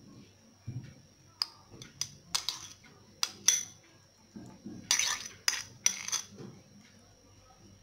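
A metal spoon clinks and scrapes against a metal baking tray and a bowl while spreading a butter-and-spice mixture over chicken pieces. It makes irregular sharp clinks in small clusters, with the loudest run about five to six seconds in.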